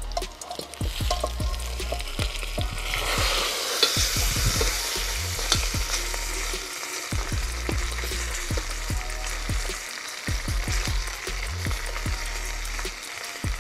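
Fried lamb pieces tipped onto fried potatoes in a hot cast-iron kazan, sizzling in the oil from about three seconds in. Throughout, the metal skimmer knocks and scrapes against the pot and the meat as it is spread out.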